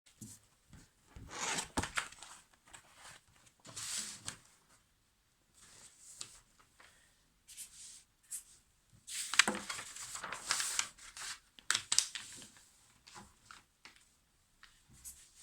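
Irregular bursts of rustling, rubbing and tearing as something is handled, with a few sharp clicks; the loudest bursts come about two thirds of the way through.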